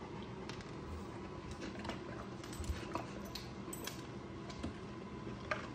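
A dog moving about at a table makes faint, scattered light clicks and ticks, over a low steady room hum.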